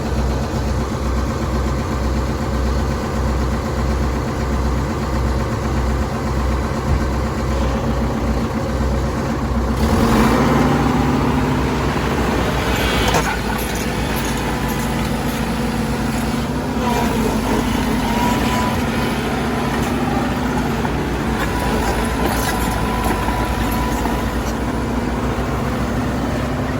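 Heavy diesel engine running steadily with a low throb. At about ten seconds it turns louder and harsher, as if taking on load or revving up, and a faint whine appears later.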